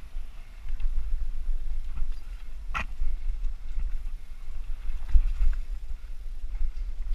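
Mountain bike rolling fast over a dirt singletrack: a low, gusty rumble of wind and trail chatter on the camera's microphone, with a sharp click about three seconds in and a thump about five seconds in.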